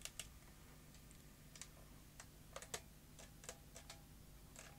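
Faint, irregular clicks of a Sony Video8 camcorder's small plastic switch and control buttons being worked again and again, over a faint steady low hum. They are repeated tries to make the camcorder eject a jammed tape.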